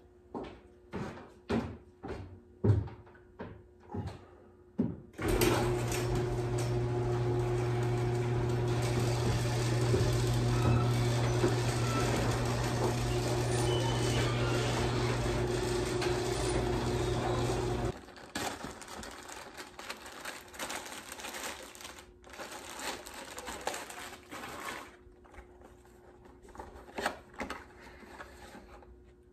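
Electric garage door opener running for about 13 seconds as the overhead door opens: a steady motor hum with a rattling whir that starts and stops abruptly. Before and after it there are a few light knocks and footsteps.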